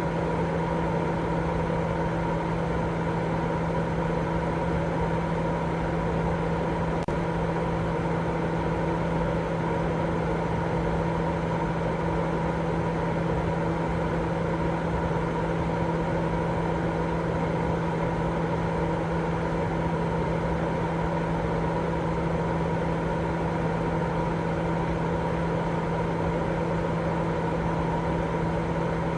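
Continuous baby-sleep white noise: an even, unchanging rushing noise with a steady low hum and a fainter higher tone running through it.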